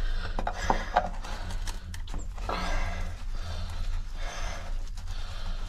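A person breathing hard in three or four short swells while straining to unscrew a stuck backflow valve cover, over a steady low hum.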